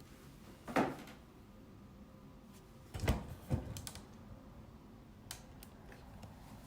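Clicks and knocks from handling a laptop and pressing its keys or power button: one sharp click a little under a second in, two knocks close together around three seconds in, then a few faint ticks.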